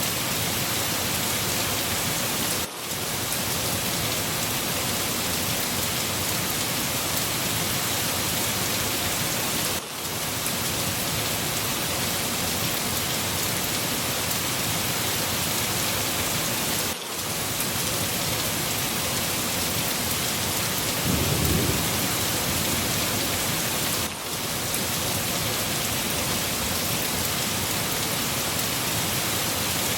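Steady heavy rain, a dense even hiss, with a short low rumble of thunder about two-thirds of the way through. The rain dips briefly every seven seconds or so.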